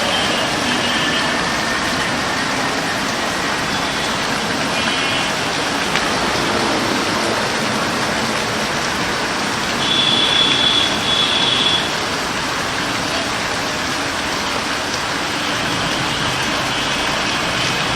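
Steady rain, an even hiss throughout. A few short high-pitched tones sound over it now and then, loudest twice in quick succession about ten seconds in.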